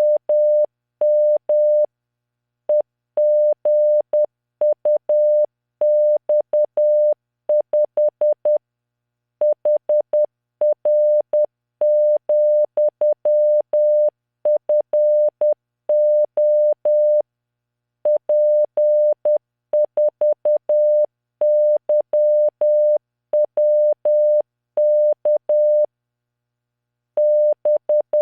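Morse code practice tone, a single steady 600 Hz note keyed in dots and dashes at 10 words per minute by LearningMorse training software. It sends groups of five random letters, figures and punctuation marks, with pauses of about a second between groups.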